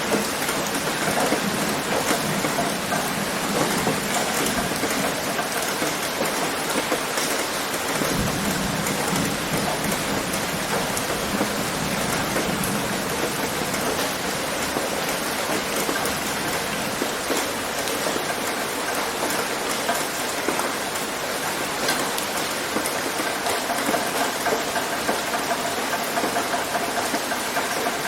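Steady heavy rain pattering on a tin roof: a dense, even hiss dotted with the ticks of single drops.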